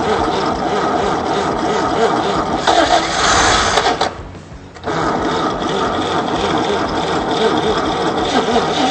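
Freshly rebuilt Chevrolet Stovebolt inline-six engine being cranked by its starter and firing up on its first start for cam break-in, with a short break in the sound about four seconds in.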